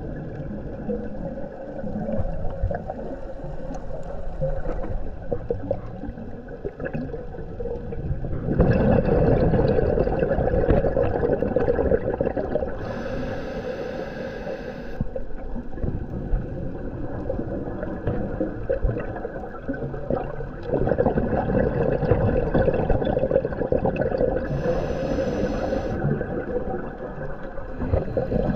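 Underwater sound on a scuba dive: a diver breathing through a regulator, with two long, louder rushes of exhaled bubbles and short, higher hisses of inhalation in between.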